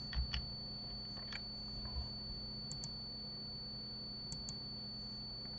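Computer mouse and keyboard clicks: a few single clicks, then two quick pairs of clicks, over a steady faint high whine and low hum.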